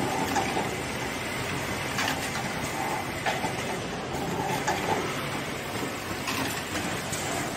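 Automatic label attaching machine running: the Brother industrial sewing head and label feeder make a steady mechanical clatter with irregular sharp clicks, over the general noise of a garment factory.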